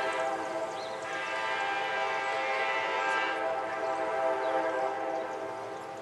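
Nathan K5LA five-chime air horn on a Norfolk Southern F9A diesel locomotive, sounding a long held chord that fades near the end.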